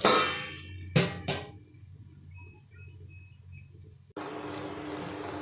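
Steel lid set down over a steel kadhai of frying parwal and potatoes: a metal clink at the start and two more clinks about a second in, then a quiet stretch. Near the end a steady frying sizzle starts abruptly.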